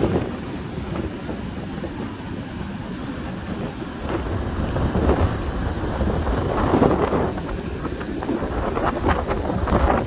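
Surf breaking and foam washing up a sandy beach, under strong wind buffeting the microphone as a constant low rumble. The waves swell louder from about four seconds in.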